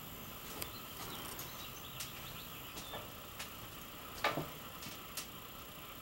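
Quiet background hiss with scattered light clicks and one louder knock about four seconds in.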